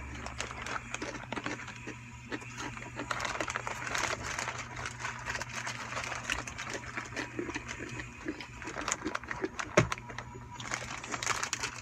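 Crunchy snack crackers being chewed close to the microphone: a dense, irregular run of crisp crackling crunches, over a faint steady low hum.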